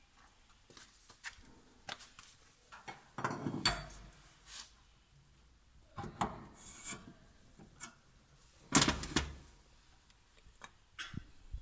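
Knocks, clatter and scraping of hands and tools working on machine parts during a bearing replacement, in three short irregular bursts, the loudest about nine seconds in, with fainter ticks between.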